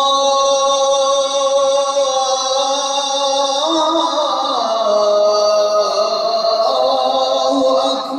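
A single man's voice chanting in Arabic over mosque loudspeakers. It holds long notes with slow melodic turns, and the pitch shifts and dips about four to five seconds in.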